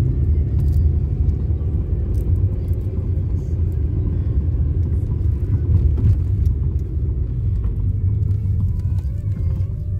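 Steady low rumble of a car's engine and tyres while driving.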